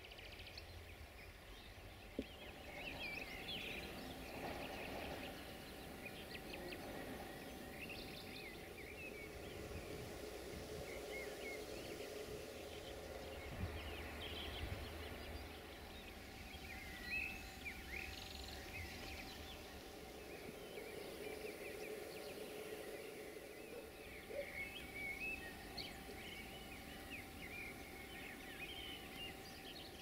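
Small birds chirping and singing in short, repeated phrases over a steady background of outdoor noise with a faint low hum.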